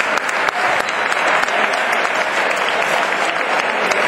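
Crowd applauding: dense, steady clapping with many sharp individual claps standing out.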